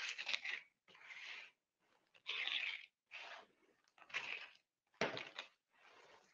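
Packing tape being torn and peeled off a cardboard box as it is opened: about six short, scratchy tearing sounds roughly a second apart.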